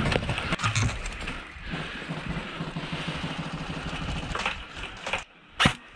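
Airsoft electric assault rifle firing on full auto: a fast, steady rattle of shots for a couple of seconds, followed near the end by a few sharp single clicks.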